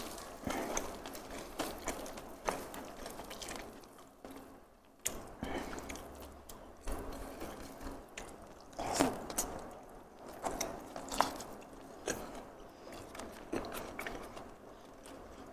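Close-miked eating by hand: fingers tearing crispy fried chicken and picking up rice and crispy anchovy sambal (sambal garing), with wet chewing and crunching of the mouthfuls. Irregular small clicks and crackles, the loudest about nine seconds in, just after a mouthful goes in.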